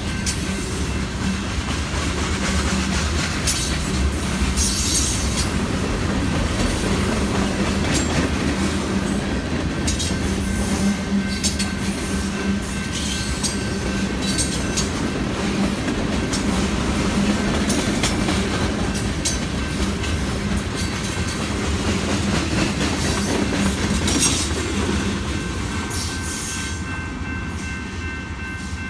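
Freight train's cars rolling past: a steady rumble broken by irregular clicks of wheels over rail joints, easing off slightly near the end.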